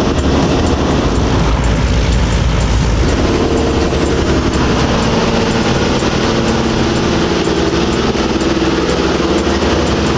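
The four Wright Cyclone radial engines of a B-17 Flying Fortress running steadily in flight, heard from inside the fuselage as a loud, even drone.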